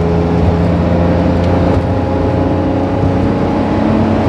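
Suzuki Every DA17V van's non-turbo 660 cc three-cylinder engine running at steady cruising speed on an expressway, heard inside the cabin as a steady engine drone over road noise, its pitch edging up slightly near the end.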